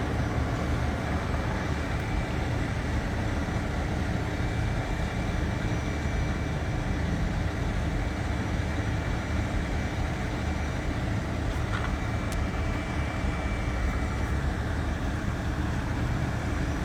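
Motor vehicle engines idling in a steady low rumble, with street traffic and no sudden changes.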